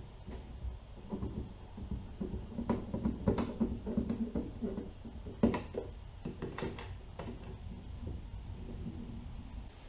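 Scattered clicks and knocks of tools and hardware against a plastic kayak hull as a fishfinder mount is screwed down, the sharpest knock about halfway through.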